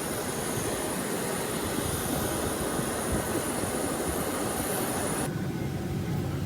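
Jet airliner cabin noise: a steady rush of engine and air noise with a thin high whine above it. About five seconds in it cuts to a different, lower hum.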